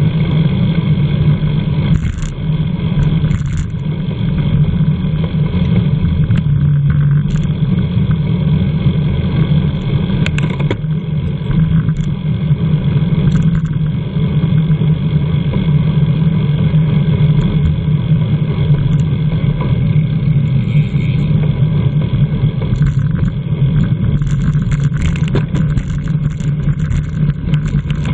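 Wind rushing over the microphone of a camera on a racing bicycle at speed: a steady, loud low rumble that wavers in level, with a few faint ticks near the end.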